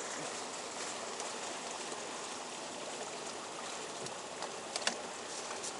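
Steady, even rushing hiss of open-water ambience, with a couple of faint knocks near the end.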